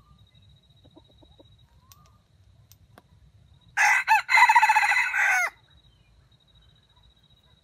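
A red junglefowl rooster crows once, about four seconds in. It is a short crow of under two seconds, with a brief break near the start and a drop in pitch at the end.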